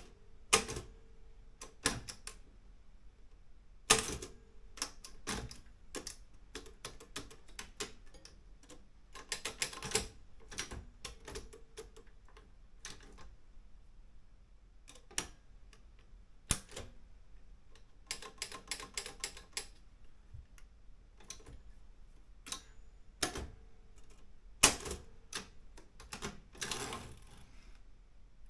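Olympia M8 manual typewriter being typed on: irregular keystrokes, each a sharp clack of a type bar striking the platen, with a few louder strikes and several quick runs of keys.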